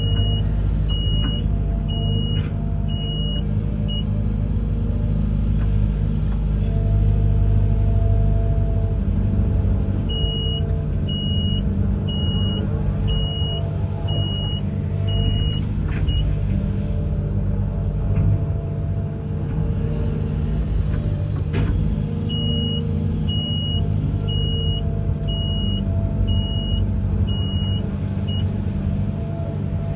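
Amphibious excavator's diesel engine running steadily under load. A high beeping alarm, about two beeps a second, sounds in three spells of about six seconds each.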